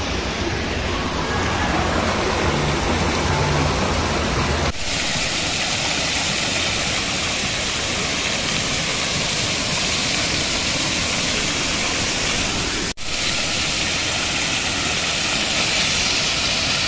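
Water splashing: a small ornamental water channel and jet for the first few seconds, then after a cut about five seconds in, a large fountain's tall jets falling into their basin with a steady, bright hiss.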